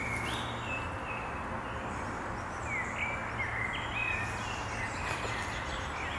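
Woodland birds singing in short chirping phrases over a steady background rush.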